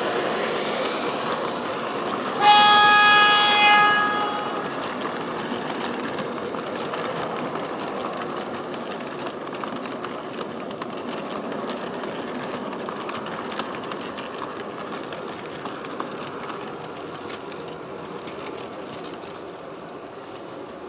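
An MTH R40 model subway train's sound system sounds its horn once, about two and a half seconds in, a blast of about a second and a half. Under it the train's steady running sound on the track goes on and slowly fades.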